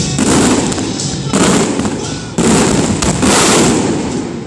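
Aerial fireworks shells bursting overhead, four loud bursts about a second apart, each trailing off before the next.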